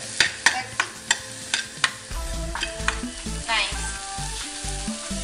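Green bell pepper strips sizzling in oil in a hot nonstick frying pan, with a spoon clicking and scraping against the pan as they are stirred. Background music with a steady bass beat comes in about two seconds in.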